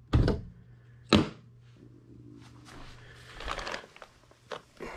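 Two sharp metal knocks about a second apart as a hand works the latch on an air handler's sheet-metal access panel, followed by rustling and a few light clicks as tools are handled.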